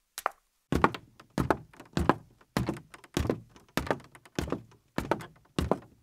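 Footsteps on a hard floor, a steady walking rhythm of thumps about three every two seconds, getting much louder just before a second in.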